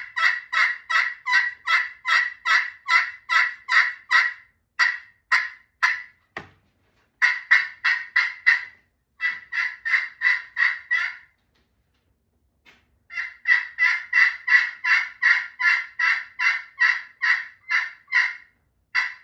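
A 3-inch copper-over-glass turkey pot call played with a striker, imitating a hen turkey: three long runs of rapid yelping notes, about three a second, with short pauses between runs. The call is high-pitched for a pot call, with a rasp in each note.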